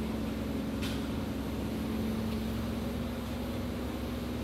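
A steady low mechanical hum, with a faint click about a second in.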